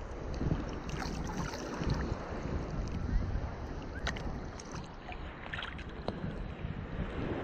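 Small waves sloshing and splashing against a camera held at the sea surface, with wind rumbling on the microphone and a few sharper splashes here and there.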